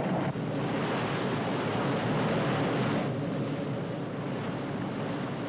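Tugboat's steam engine running hard astern: a loud, steady rushing noise that eases and dulls about three seconds in, with wind and sea noise under it.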